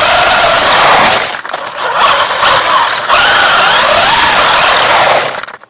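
WLToys 144001 RC buggy's electric motor and gear drive whining at speed, heard close up from on board, with tyre noise on pavement; the pitch rises and falls with the throttle. It eases off about a second in, picks up again, and cuts off just before the end.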